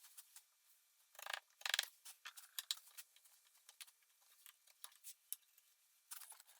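Faint, scattered light clicks and taps, with a few slightly louder ones between one and three seconds in.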